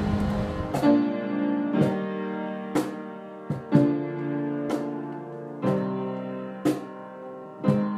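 Background music: piano-like notes or chords struck about once a second and left to ring. Wind noise on the microphone fades out under it in the first second.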